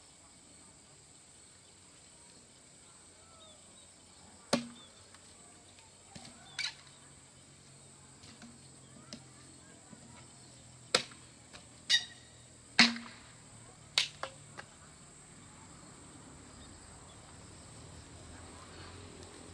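Bamboo poles knocking against each other or against the fence posts as they are handled: about seven sharp knocks, spread unevenly over ten seconds, with a steady high insect hum behind them.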